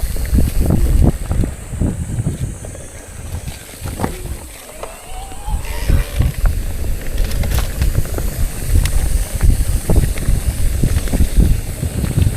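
Wind rumbling on the microphone with irregular knocks and rattles of a bicycle riding over a rough forest road; it eases for a couple of seconds about four seconds in, then picks up again.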